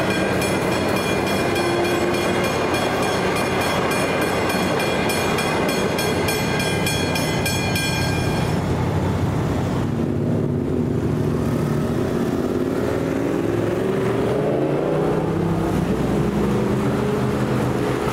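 Level crossing bell ringing fast and steadily over the rumble of a Metro suburban electric train passing. The bell stops suddenly about eight or nine seconds in as the train clears and the boom gates lift; then car engines rise as traffic moves off across the tracks.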